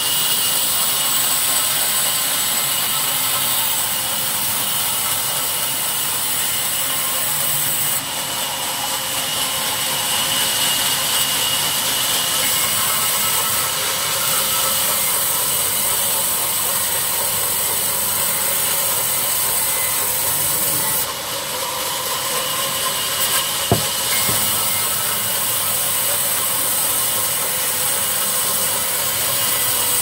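Sawmill band saw ripping a wattle (acacia) log into planks: a steady hiss and whine of the blade cutting through the wood. A single sharp knock comes about three-quarters of the way through.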